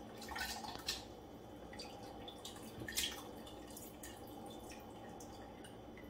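Leftover cabbage soup being scooped out of a plastic container into a glass blender jar: a few soft, wet plops and clicks, the loudest about three seconds in.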